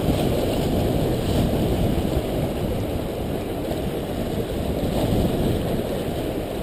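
Steady wind buffeting the microphone, a low rumble that swells and eases slightly, over ocean surf.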